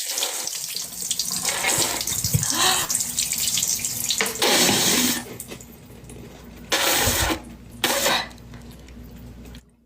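Running water, as from a tap. It is louder for about the first five seconds, then quieter, with two short louder spells near the end.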